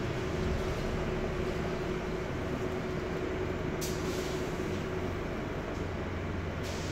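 Interior running noise of a Wright StreetDeck double-decker bus, heard from the top deck while under way: a steady engine and road rumble, with the exhaust blowing from a leak. A steady whine stops about five seconds in, and there is a short hiss about four seconds in.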